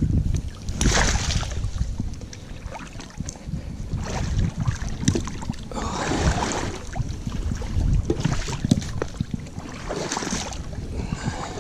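Wind buffeting the microphone, with a constant low rumble and several short noisy bursts.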